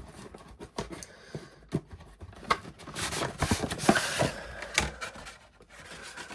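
Irregular knocks, clicks and scrapes with some rustling as the contents of a cardboard box and its packaging are handled.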